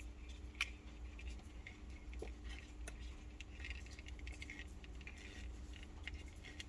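Faint rustling and small scratchy clicks of paracord thread being pulled through a hole in leather and handled, with one sharp click about half a second in.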